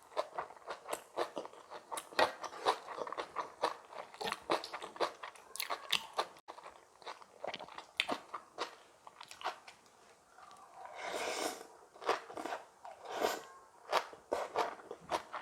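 Close-up eating sounds: crisp, irregular crunching and chewing of spicy kimchi bibimbap. There is a longer, noisier sound about eleven seconds in.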